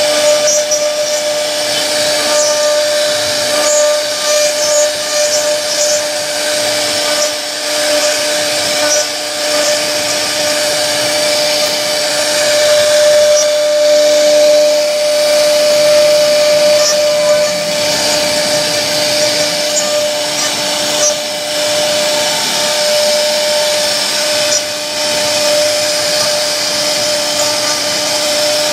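A CNC router spindle carves a relief pattern into a wooden door panel. It makes a steady whine over the continuous hiss of the bit cutting the wood.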